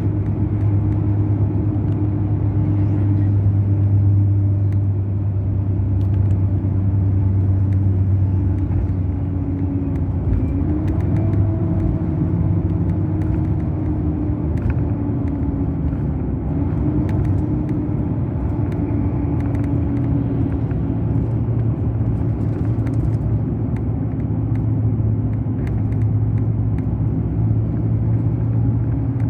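Mercedes-Benz O500 RSD coach's BlueTec5 diesel engine running steadily under way, a deep drone whose pitch shifts a little about ten seconds in.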